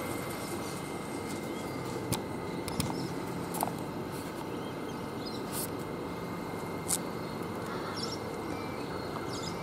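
Steady hum of a Queensland Rail electric train standing at the platform, with a constant thin high whine and a few short clicks and chirps scattered through.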